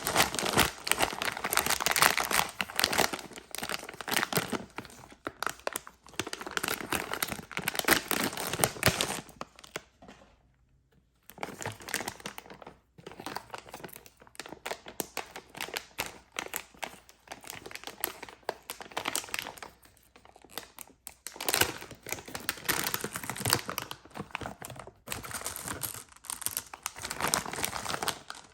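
Candy and chocolate packaging being crinkled and torn open by hand: a dense run of irregular crackling and rustling, with a short pause about ten seconds in.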